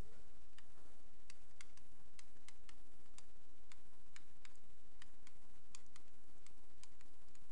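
Stylus tip tapping and clicking on a pen tablet during handwriting: a scatter of small, sharp, irregular clicks, a few per second, over a steady low hum.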